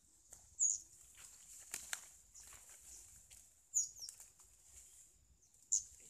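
Three short, very high-pitched bird calls, a few seconds apart, over faint scattered rustles and twig clicks in the undergrowth.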